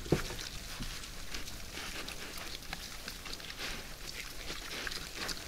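Wild boars feeding: a continual patter of short crunching and chewing clicks from several animals, with one louder low grunt-like sound just after the start.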